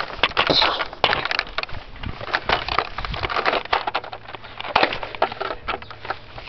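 Footsteps running over rough ground, a rapid, irregular crunching and crackling.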